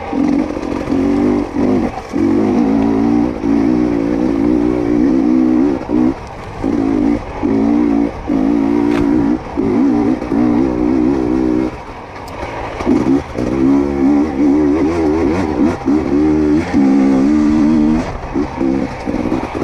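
2022 GASGAS EC250 two-stroke dirt bike engine revving as the throttle is worked on and off, its pitch rising and falling with many short drops as the rider picks through tight singletrack.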